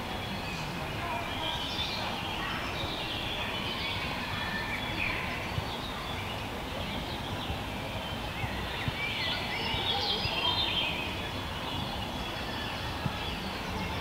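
Small songbirds chirping and trilling, busiest about two seconds in and again around ten seconds, over a steady low background rumble.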